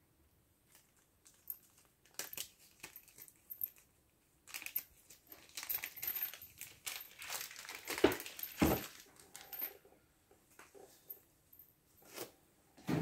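Rustling and crinkling of paper and plastic as gloved hands handle parts of a hydraulic pump's piston assembly on a workbench, with small clicks of parts. Two louder knocks come a little past the middle.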